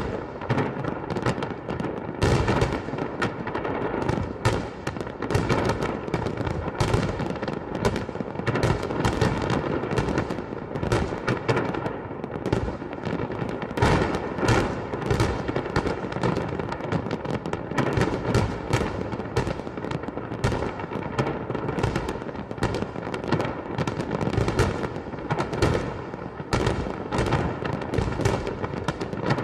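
Fireworks display going off nonstop: a dense barrage of bangs and crackles, many per second, with no letup.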